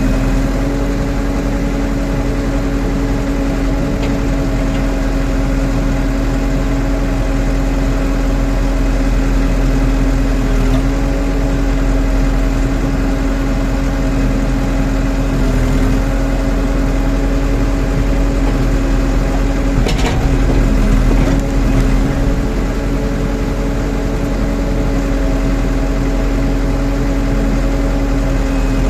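Backhoe engine running steadily, its pitch shifting slightly now and then, with one sharp knock about twenty seconds in.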